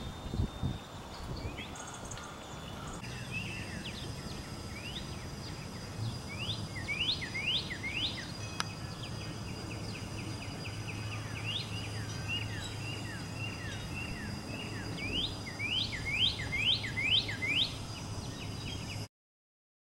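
Birds calling: several runs of quick rising chirps, four to six in a row, over a steady high-pitched tone and a low hum. The sound cuts off abruptly near the end.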